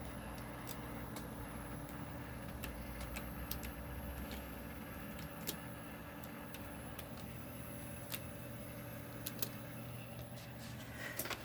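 Western Digital Black hard drives reading files, with irregular sharp seek clicks and raspy grinding over the steady hum of the running computer. The uploader is unsure whether this noise is normal.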